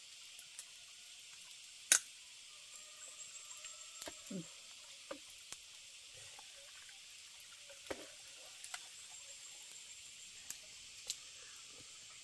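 Steady high hiss of forest insects with a faint thin whine above it, broken by a handful of short sharp clicks and snaps, the loudest about two seconds in, as crab shell is broken apart by hand while eating.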